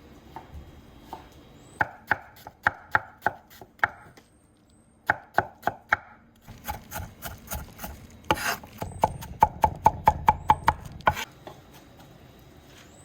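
Knife finely chopping onion on a cutting board in runs of sharp strokes, with a brief pause about four seconds in. It ends in a faster run of about four strokes a second before stopping about eleven seconds in.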